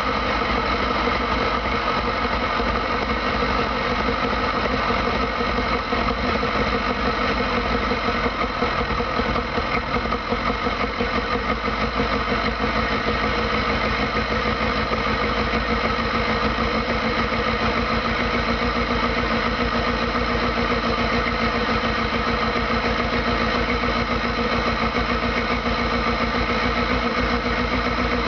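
Van engine idling steadily as it warms up after a flooded start, heard from inside the cab through the open engine cover and air cleaner, with an even pulsing beat.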